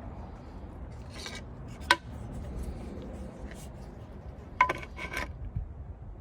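A few light, short clinks that ring briefly: one sharp clink about two seconds in and a quick cluster of them about four and a half seconds in, over a steady low rumble.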